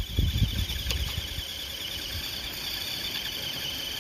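Radio-controlled crawler truck's electric motor whining steadily as its wheels spin in snow and the truck stays stuck, digging in. A low rumble in about the first second.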